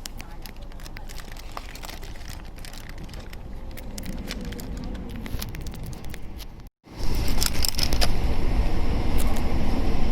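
Running noise of a passenger train heard from on board: a steady rumble with scattered clicks and crackles. It breaks off for an instant about two-thirds of the way in and comes back much louder and deeper.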